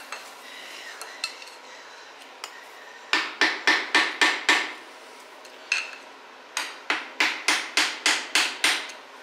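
Hammer tapping a screwdriver driven into the seam of a GM 8.2 10-bolt rear axle's differential cover, to break the stuck cover loose. About three seconds in comes a run of about six quick, light metallic taps, then a single tap, then a longer run of about nine taps at three or four a second.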